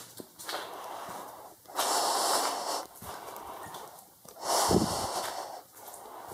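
A person breathing heavily close to the microphone: two loud, long breaths about two and five seconds in, with quieter breathing between.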